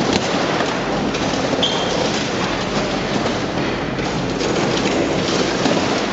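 Heavy machinery running with a continuous dense rattling clatter and rumble, with scattered metallic clanks.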